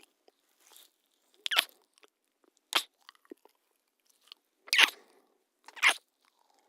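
A couple kissing: wet lip smacks, four loud ones spaced about a second apart with a few faint smacks between.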